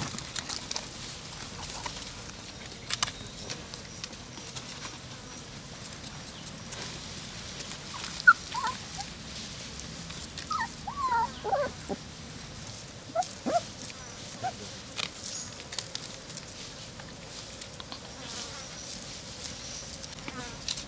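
Puppies whimpering in short, high, falling cries, in a few clusters through the middle, with light taps and rustles in the background.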